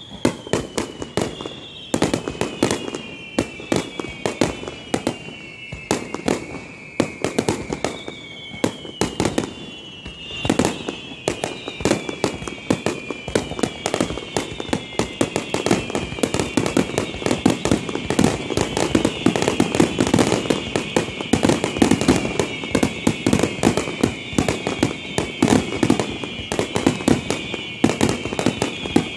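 Fireworks finale: a rapid, dense barrage of aerial shell bursts and crackling, overlaid by many long whistles that fall in pitch. The barrage grows louder in the second half.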